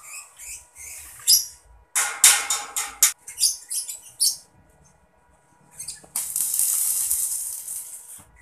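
Stick (electric arc) welding on a steel tower frame: in the first half, short ragged bursts of arc crackle, then from about six seconds a steady crackling hiss as the arc is held for about two seconds before it stops.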